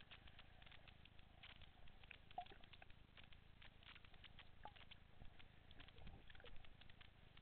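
Faint underwater ambience picked up by a submerged camera: a dense, irregular crackle of small clicks over a low rumble.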